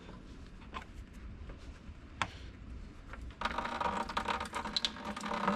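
A few faint clicks as the tractor's coolant drain petcock is worked by hand. Then, about three and a half seconds in, antifreeze starts streaming and splashing into an empty plastic bucket.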